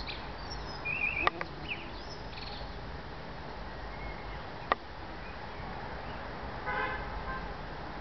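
Outdoor background of distant road traffic with a short car horn toot near the end. A bird chirps briefly about a second in, and sharp clicks come twice.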